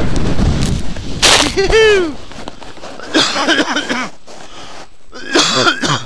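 Rushing wind and snow noise on the microphone while skiing through powder, fading after about a second, then three short excited shouts or whoops from the skiers, the first opening with a sharp burst.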